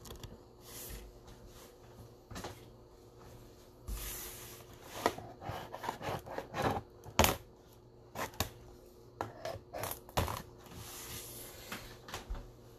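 A cardboard trading-card box being handled on a wooden table: scattered taps, clicks and knocks with brief rustling, the sharpest clicks clustered in the middle.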